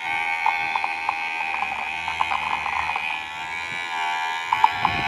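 Small electric motor of a homemade mini mixer grinder running at speed with a steady high whine, with irregular clicks and ticks of something knocking inside it. The pitch sags slightly about three and a half seconds in, then picks up again.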